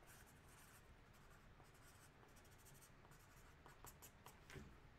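Faint scratching of a felt-tip permanent marker writing, with a few small ticks in the second half.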